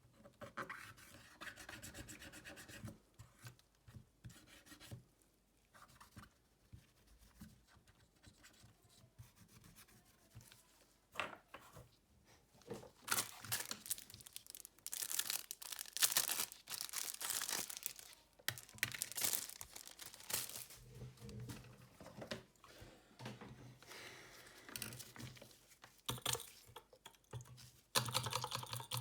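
Irregular rubbing, scraping and tearing noises from hand work on a Xiaomi Redmi Note 9S phone during a back cover replacement. They come in short stretches and are loudest around the middle.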